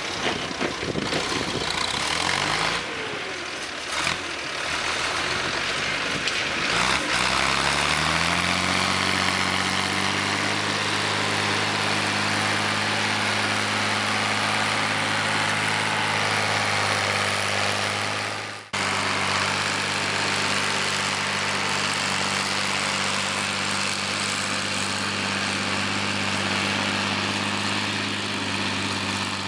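Ursus 1224 tractor's six-cylinder diesel engine running. Its speed climbs about a quarter of the way in and then holds steady, with a momentary break about two-thirds in.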